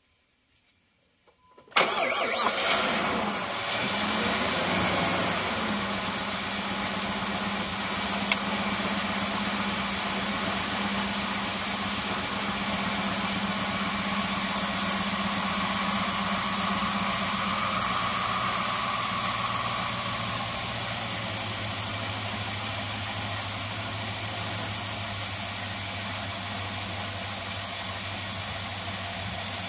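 A 2004 Jeep Grand Cherokee's 4.7-litre V8 starting about two seconds in, then idling steadily; its pitch and level settle lower about twenty seconds in. This is the first start on a newly fitted alternator.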